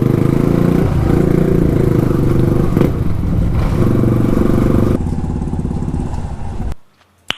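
Yamaha R15 V2's single-cylinder four-stroke engine running through an Akrapovic exhaust with the dB killer removed, a loud steady drone. The sound changes abruptly about five seconds in and fades out near the end.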